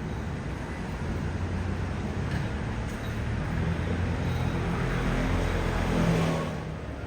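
A vehicle's low, steady engine rumble that builds towards about six seconds in, then eases off.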